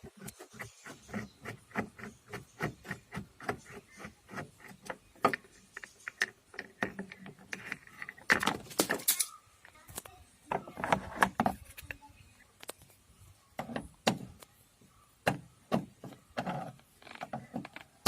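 An inner door trim panel being worked off a Maruti Suzuki Alto's door. A long run of small clicks and knocks at about three a second gives way to two louder scraping, rattling bursts about halfway through, then scattered knocks.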